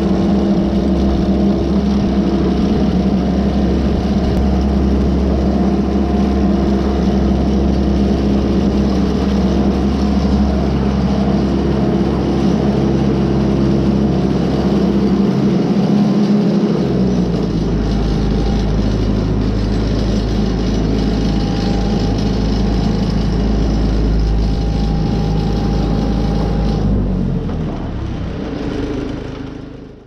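Tractor engine running steadily while towing a New Holland 273 square baler, its note dropping lower about halfway through as it slows down; the sound fades out near the end.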